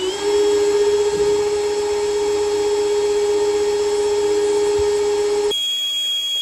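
Milwaukee M18 cordless drill running steadily at speed, its twist bit cutting a hole through sheet steel, with a steady motor whine and a thin high squeal from the bit. About five seconds in, the motor note cuts out abruptly, leaving only the high squeal.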